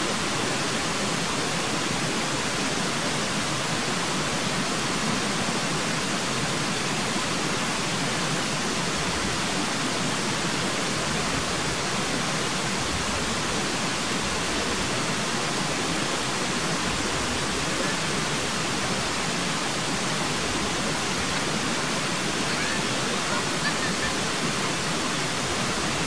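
A steady, even hiss of noise with no distinct sounds standing out of it.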